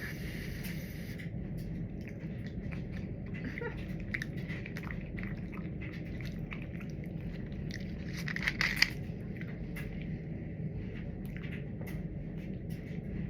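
Wet, irregular clicks and smacks of eating and chewing a soft red bean dessert, with a sharper click a little past halfway, over a steady low hum.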